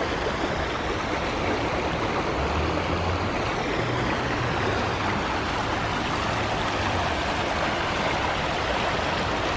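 Shallow creek rushing steadily over rocks and riffles.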